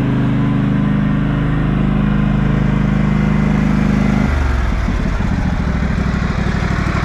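Riding lawn mower's small engine running steadily, then dropping to a lower, pulsing idle about four seconds in.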